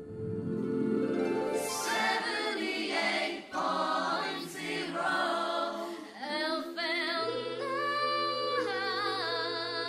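A cappella vocal music: several voices singing held notes in harmony, with pitch changes every second or so.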